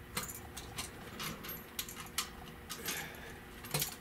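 Irregular sharp metallic clicks and taps of hand tools and loose metal parts against a carburetor's throttle linkage and mounting as it is being unbolted, with a louder cluster near the end.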